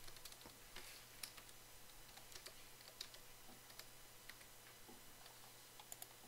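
Faint computer keyboard typing: scattered, irregular key clicks over a low steady hum.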